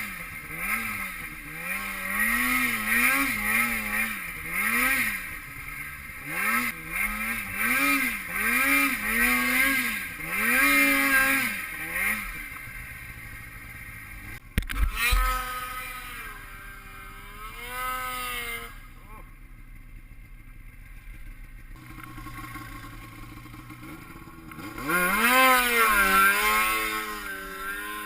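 Snowmobile engine revving up and down in quick surges, about one a second. A sharp knock comes about halfway through, then the engine runs quieter before another loud burst of revving near the end.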